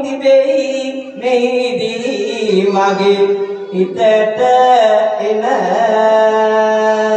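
A man chanting Sinhala verse (kavi) into a microphone, in long held notes that slide from one pitch to the next.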